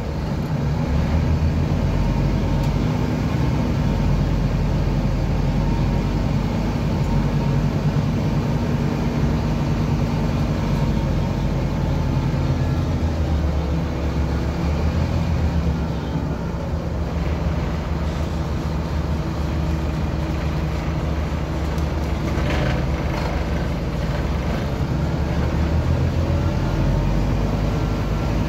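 Scania DC9-17 five-cylinder diesel of a city bus, heard from inside the passenger cabin as the bus drives. The engine note rises and falls. There is a brief knock about three-quarters of the way in.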